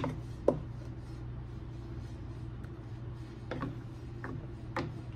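Wooden spoon knocking and scraping against a stainless steel pot while stirring chicken in a thick sauce: a few short knocks, the loudest about half a second in, over a steady low hum.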